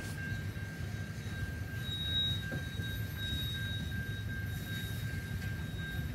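Freight train's tank cars and covered hoppers rolling past, a steady low rumble of wheels on rail. A thin steady whine runs through it, and a higher squeal comes in about two seconds in. Heard from inside a car.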